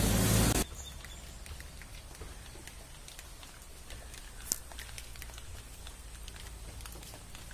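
Faint scattered patter of raindrops, with one sharper tick about four and a half seconds in, over a low steady hum. A louder hiss cuts off abruptly about half a second in.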